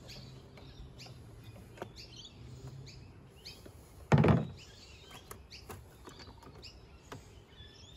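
Small clicks and scrapes of a screwdriver and fingers working the primer cap off a Victa two-stroke lawnmower's carburettor, with one louder knock about four seconds in. Birds chirp in the background.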